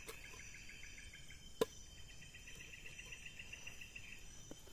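Night insects of a tropical forest: crickets chirping in rapid pulsed trills over a steady high-pitched insect drone. A single sharp knock about a second and a half in.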